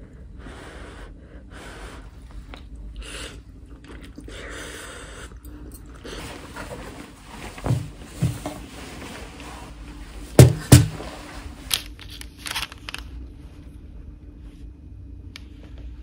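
Eating noises: noodles slurped and chewed, with a fork and spoon against a ceramic bowl. Then a cloth placemat is spread and tableware is set down: a few sharp knocks, the loudest two close together about ten seconds in.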